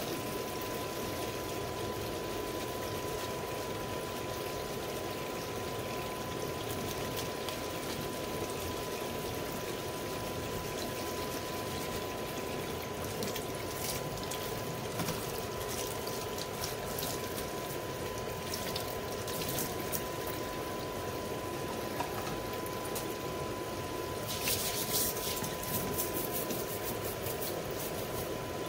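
Tap water running and trickling over hands as they are scrubbed to get the sticky matooke sap off the palms and fingers, with a few sharp clicks or knocks near the end.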